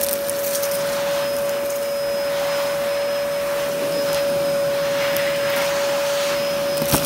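Vacuum cleaner running, with a steady motor whine over rushing air as its nozzle is pushed across carpet. There is a sharp click near the end.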